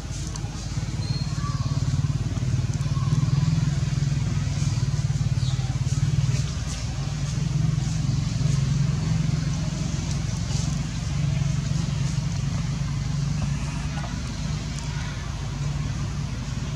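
Low, steady engine drone, somewhat louder in the first half.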